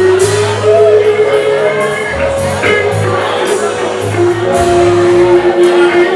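A live band playing, with long held melody notes over regular drum hits.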